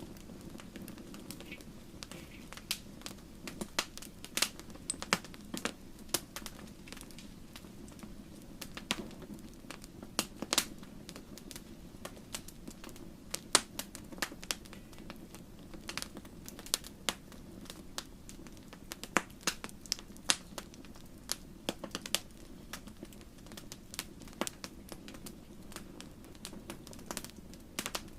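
Wood fire crackling in a fireplace: a steady low rumble of the flames with frequent sharp, irregular pops and snaps.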